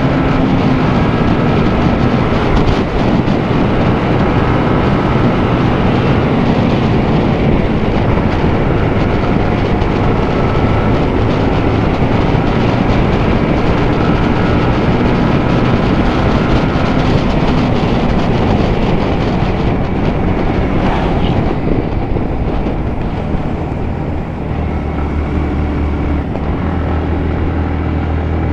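Yamaha MT15's single-cylinder four-stroke engine pulling the bike along a winding hill road. Its note rises and falls with throttle and gears over a heavy rush of wind. Near the end it settles to a lower, steadier note.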